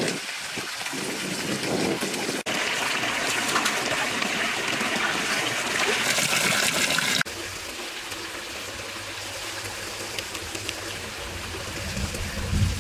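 Running water trickling and splashing from pipe spouts into a cement pond, its sound changing abruptly twice. A low bump comes near the end.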